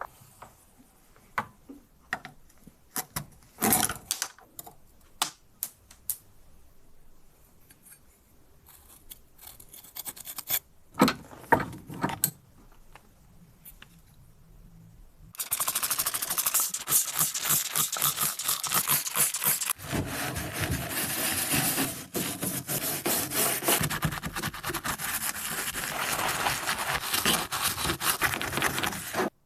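Small metal bicycle rear derailleur parts clicking and scraping as they are handled and taken apart. About halfway through, a steady rapid scrubbing or rubbing starts abruptly and keeps going, typical of the parts being cleaned.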